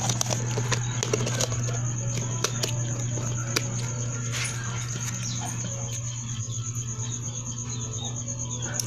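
Slime being squished and stretched by hand, giving small irregular clicks and pops over a steady low hum.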